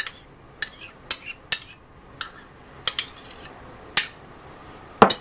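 A spoon clinking and tapping against a bowl as yogurt is spooned into semolina: sharp, irregular clinks, about one or two a second.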